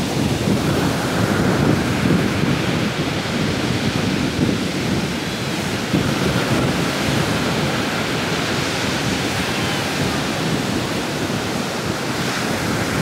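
Ocean surf washing onto a beach, a steady rushing noise, with wind buffeting the microphone.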